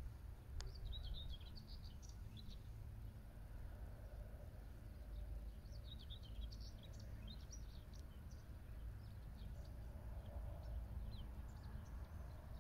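Faint birdsong, small birds chirping in two spells, about a second in and again around six seconds, over a steady low rumble.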